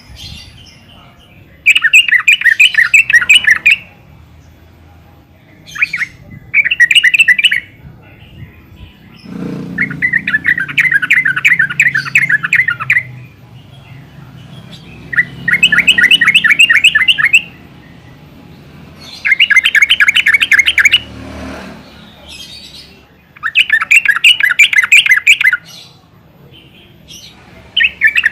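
Yellow-vented bulbul (trucukan) calling in loud bursts of rapid chattering notes, each burst lasting one to three seconds, about six bursts with short pauses between.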